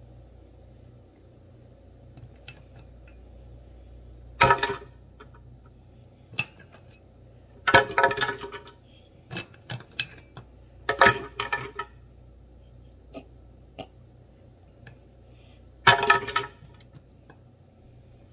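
Ice cubes clinking and clattering against each other and a hard container in four short bursts, with a few single clicks in between.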